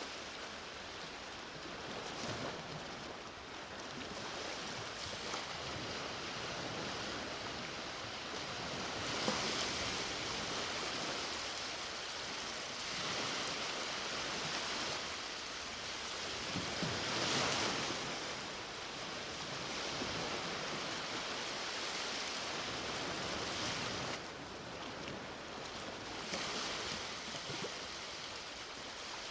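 Ocean waves breaking and washing on a beach, a continuous surf hiss that swells with each wave, the strongest surge about seventeen seconds in.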